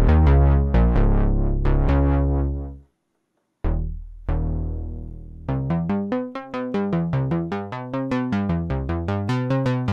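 KORG minilogue analog synthesizer played dry, with no added effects, on a bass patch: low notes that die away quickly. The sound cuts to silence about three seconds in, then a new bass note comes in, and from about halfway a fast run of short bass notes follows, about four a second.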